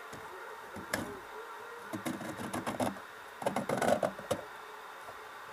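Aluminium cover plate sliding into the grooves of an extruded aluminium amplifier case: a sharp click about a second in, then metal scraping and rattling, loudest in a cluster of clatters over the second half.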